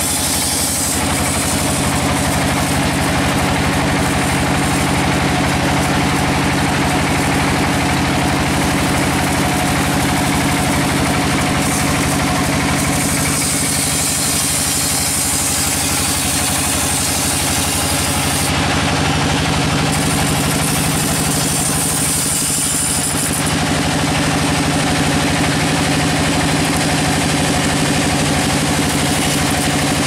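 Band sawmill running, its wide steel band blade sawing lengthwise through a large log, over the steady hum of the saw's drive. A high hiss from the cut fades briefly a couple of times and comes back.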